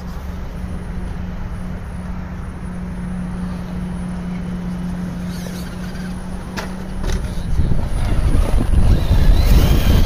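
Radio-controlled crawler truck's motor running with a steady low whine as it creeps over a wooden plank bridge. A couple of sharp knocks come about two-thirds of the way through as it drops off the planks and tips over. Wind buffeting the microphone then brings in a louder rumble near the end.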